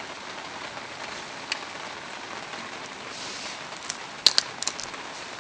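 Heavy rain falling steadily, with a few sharp ticks of drops or taps close by, the loudest about four seconds in.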